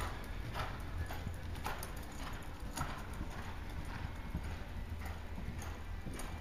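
Hoofbeats of a paint reining horse loping on the soft dirt footing of an indoor arena, with a regular stride beat about once a second over a steady low rumble.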